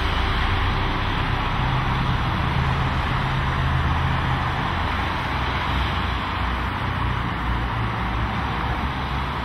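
A steady rushing noise with a low rumble underneath, even throughout with no distinct impacts.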